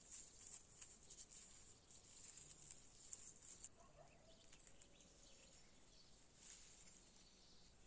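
Near silence: faint scattered light clicks and rustling, with one faint short chirp-like call about four seconds in.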